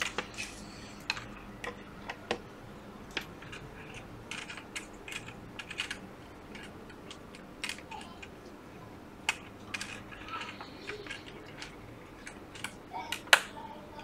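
Irregular small clicks and taps of hands handling an iPad Pro's loose display panel and pressing its flex-cable connectors onto the logic board, with a sharper click near the end.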